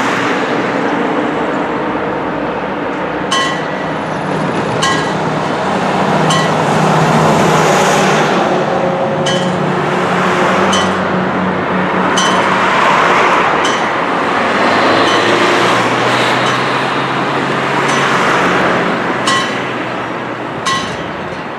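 Italian FS88 level crossing's warning bell starts about three seconds in, striking one ringing stroke about every one and a half seconds to signal an approaching train. Cars and a truck drive across the crossing at the same time.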